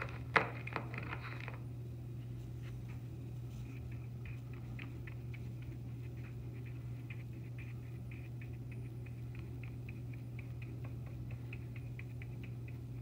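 Paintbrush dabbing and stroking paint onto a canvas: many faint quick taps and scratches over a steady low hum. About half a second in, a sharp knock and a short clatter.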